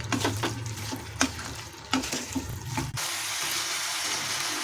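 Wooden spatula stirring and scraping chilli mushrooms through their sauce in a non-stick kadai, a string of separate strokes. About three seconds in, a steady sizzling hiss of the sauce in the hot pan starts suddenly.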